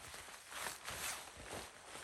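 Footsteps in snow, about two steps a second.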